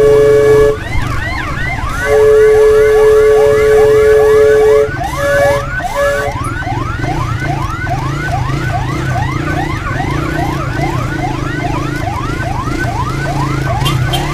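Electronic emergency siren wavering up and down about twice a second, broken by long steady horn blasts at the start and from about two to five seconds in, then two short blasts, with a vehicle engine running underneath.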